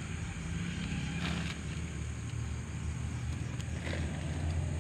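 A steady low hum, with a few faint scrapes of bare hands smoothing and patting loose soil.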